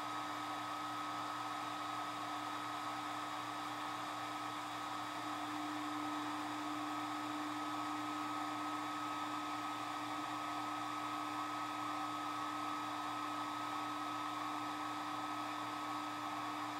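Algolaser DIY kit diode laser engraver running a slow cut through 2.5 mm plywood: a steady whir from its fans and motors, with a steady low hum and a higher whine in it.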